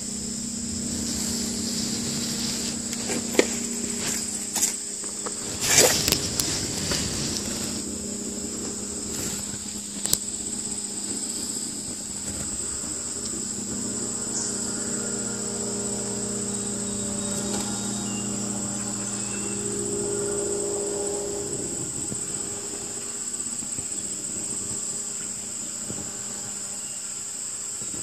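Background chorus of insects, a steady high-pitched drone, over a low steady hum. A few sharp clicks cut through, the loudest about six seconds in.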